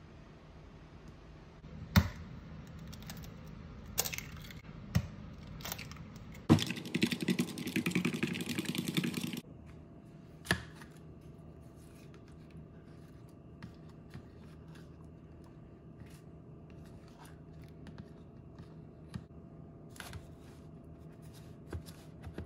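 Kitchen food-prep sounds while breading a crappie fillet: a few sharp taps and clatters on the counter, then about three seconds of rapid scratchy scraping from about six and a half seconds in. Afterwards only faint small clicks and handling noises as the fillet is dipped in beaten egg and pressed into fish batter mix, over a faint steady hum.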